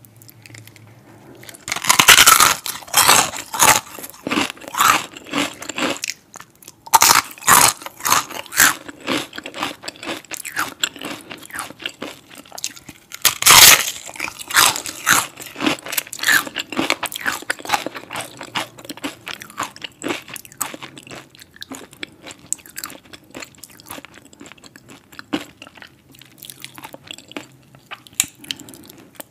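Close-miked bites into crispy fried chicken skin dipped in cheese sauce, crunching loudly in three bouts, about two, seven and thirteen seconds in. Quieter chewing follows each bout and continues to the end.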